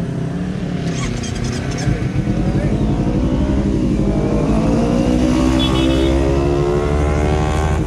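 Kawasaki Ninja 250 FI's parallel-twin engine through an Austin Racing aftermarket exhaust, pulling away and accelerating, its exhaust note rising steadily in pitch from about two seconds in.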